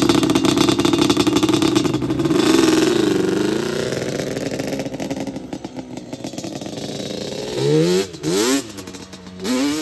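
Yamaha Banshee 350 quad's two-stroke twin engine pulling away and fading as it rides off, then revved hard in three quick rising bursts in the last two seconds.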